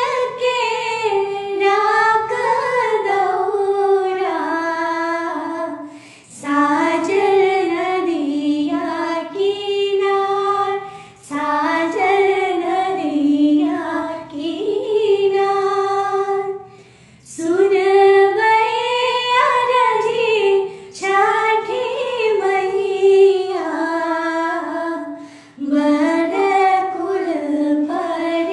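Two women singing a Chhath folk song together, unaccompanied, in long phrases with short breaks for breath about every five seconds.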